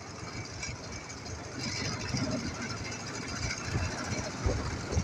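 Ural flat-twin motorcycle engine running, with a steady rushing noise and a couple of low thumps near the end.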